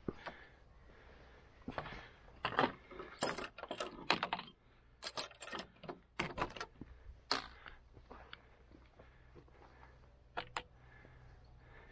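Metal chain and ring latch of a wooden field gate clinking and rattling as the gate is unfastened and swung, in several short clusters of sharp metallic clinks and wooden knocks, with two quick clicks near the end.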